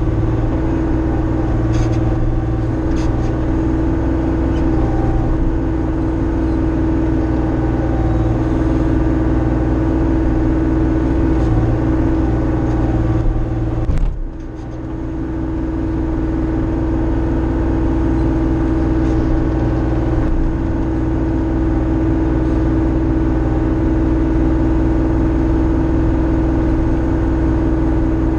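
Diesel engine of a Bobcat compact machine running steadily under load while grading dirt. It dips briefly about halfway through, then comes back to the same steady running.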